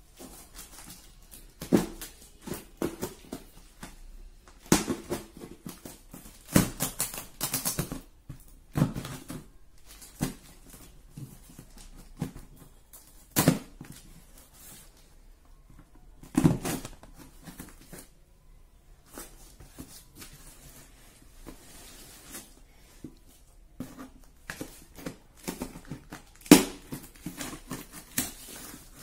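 Packing tape on a cardboard box being cut open with a pen tip: irregular scratching, tapping and crackling of tape and cardboard, with a few louder scrapes and knocks.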